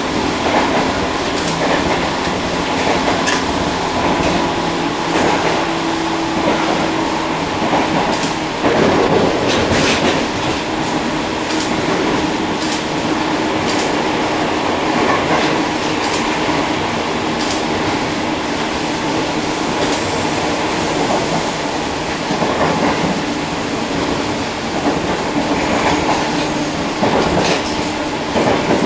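Tobu 1800 series electric train, motor car MoHa 1839, running at speed, heard from inside its vestibule deck: a steady rumble with a constant hum, and the wheels clicking over rail joints every second or two.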